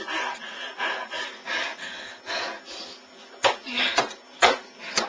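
A child breathing hard in hissing puffs, then four sharp knocks about half a second apart in the second half.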